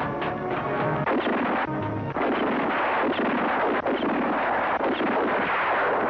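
Film battle sound effects: a dense barrage of gunfire, many rapid shots running together. It starts about a second in and takes over from the music.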